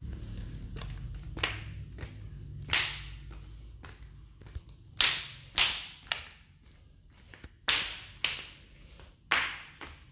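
Footsteps: a run of separate steps, some with a sharp scraping scuff, at an uneven walking pace, over a low hum that stops about halfway through.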